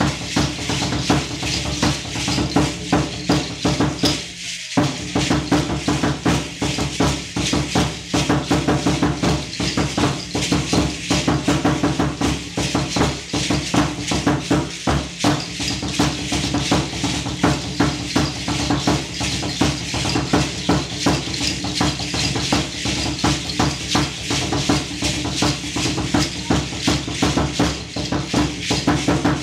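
Aztec dance drumming: a tall upright huehuetl drum beaten in a fast, steady rhythm, with rattling from the dancers. The sound cuts out briefly about four and a half seconds in.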